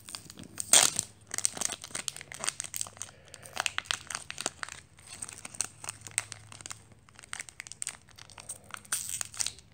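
Foil trading-card booster pack torn open at its tear tab and crinkled as the cards are drawn out: a run of irregular crackles and rustles, loudest about a second in and again near the end.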